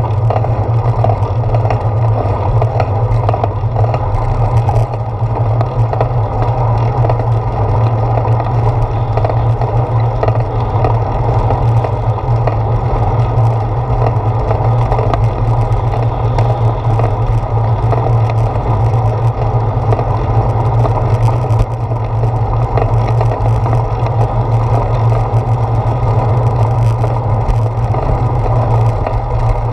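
Steady rolling rumble and wind noise from a bicycle riding along a paved path, with tyre and road vibration carried up through the handlebar mount into the camera. It runs unbroken and loud, with a strong low hum under it.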